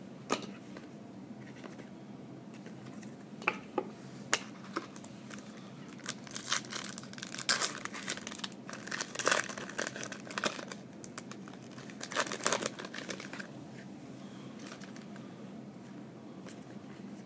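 Trading-card pack wrappers crinkling and tearing as packs are opened and the cards handled, with a few sharp clicks early on and a run of irregular crackly bursts through the middle.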